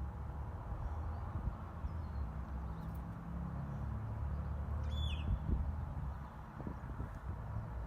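Steady low background rumble with a short bird chirp about five seconds in and a few faint knocks.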